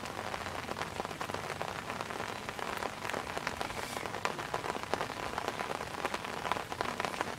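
Rain falling steadily: a constant hiss dotted with many small, sharp ticks of drops.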